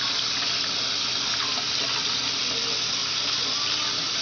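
Kitchen faucet running steadily into a water-filled pot in the sink, the stream splashing into the water.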